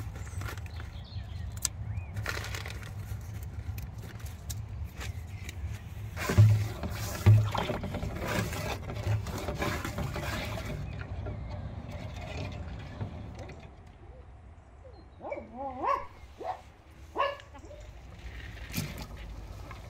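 Wooden spoon stirring thick tomato sauce in a large metal pot, scraping and clattering, with two heavy thumps about six and seven seconds in. A few short animal calls with a bending pitch follow near the end, over a steady low rumble.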